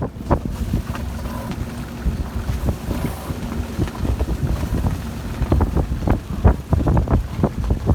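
Wind gusting at around 21 knots over a sailboat at anchor, buffeting the microphone: a steady low rumble broken by irregular thumps, which come thicker in the second half.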